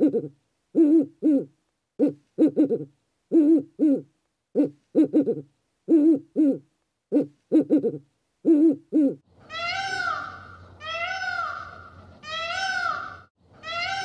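A spotted wood owl hooting: short, low hoots in quick clusters of two or three, repeated through the first nine seconds. About nine seconds in this gives way to a peacock's loud nasal calls, each rising then falling, repeated about every second and a half.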